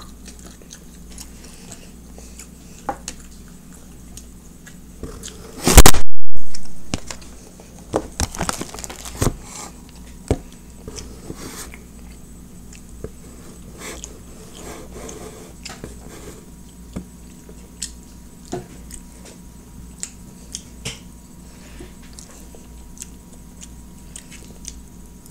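Close-up chewing and mouth sounds of someone eating a California roll, with scattered short clicks of a metal fork against a plastic sushi tray. About six seconds in comes one very loud, distorted bump, then the sound drops out for a moment.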